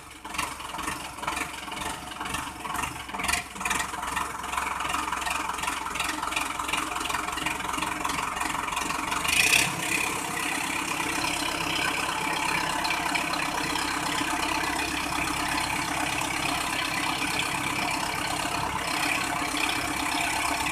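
Sonalika DI 750 tractor's diesel engine running steadily under load while the mud-stuck rear wheel is driven onto a wooden log for grip. About halfway through there is a brief loud surge, after which the engine runs louder.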